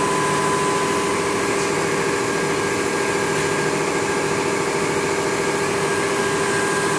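Shrink-packaging machine for ladders running, a steady mechanical hum with constant tones over an even noise.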